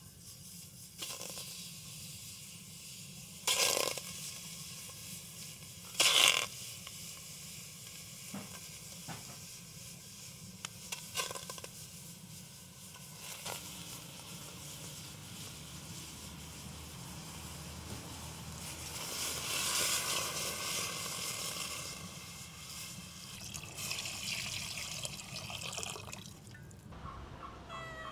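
Pieces of raw beef tongue dropped into an aluminium pot over a wood fire, with two loud short bursts a few seconds in, a few light clicks, and longer rushes of noise about twenty seconds in and again near the end.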